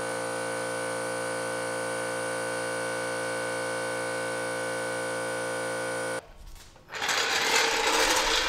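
A steady hum of several held tones that cuts off abruptly after about six seconds. About a second later comes a loud scraping rattle as a steel floor jack is rolled out across the concrete.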